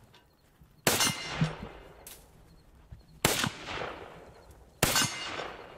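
Three rifle shots, the second about two and a half seconds after the first and the third about a second and a half later, each followed by a long echoing tail.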